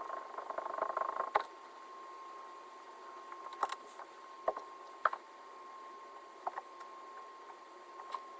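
Scattered light taps and clicks of tools and leather-hard clay slabs being handled, with a short stretch of scraping near the start, over a steady faint high-pitched hum.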